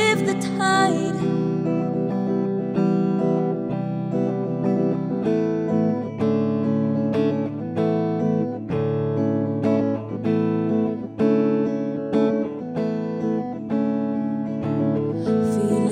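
An acoustic guitar strummed in a steady rhythm: an instrumental stretch of the closing song, with a sung line fading out just at the start.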